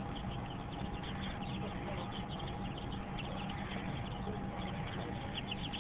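A brood of baby chicks peeping together, many short high cheeps overlapping in a continuous chorus, over a steady low hum.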